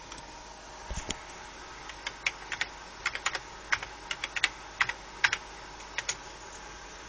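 Typing on a computer keyboard: a run of irregular key clicks for about five seconds, over the steady hiss of a fan.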